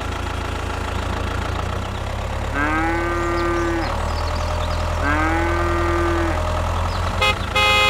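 Two long cow moos, each lasting over a second, over a steady low engine hum. A short buzzy tone sounds near the end.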